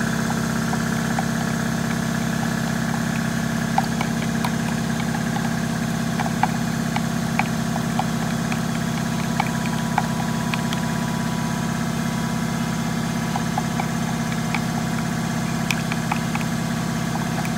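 Shop air compressor running with a steady low hum. Scattered light ticks come from a stir stick knocking against a plastic mixing cup.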